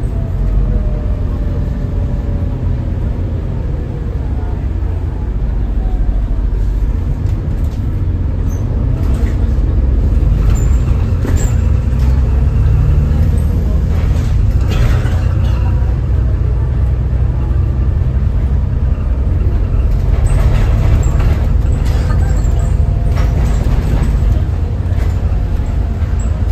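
Volvo B7TL double-decker bus on the move, heard from the upper deck: the deep, steady drone of its rear-mounted six-cylinder diesel and road noise, growing louder about ten seconds in. Scattered rattles and clicks are heard through the middle and near the end.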